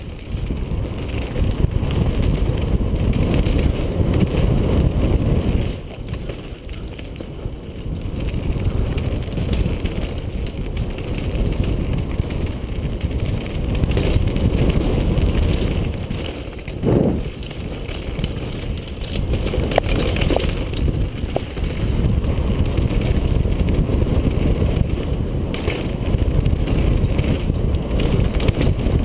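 Downhill mountain bike running fast over a rough dirt trail: a steady rumble of wind buffeting the microphone and tyres on dirt, with a few sharp knocks and rattles from the bike over rocks.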